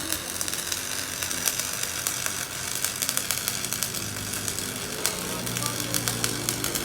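A machine running with a steady low hum and dense, irregular clicking and crackle.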